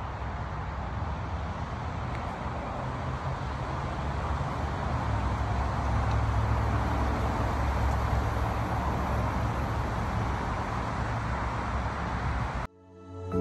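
A steady low rumble with a hiss of background noise, growing a little louder about halfway through. It cuts off abruptly near the end, and gentle music begins.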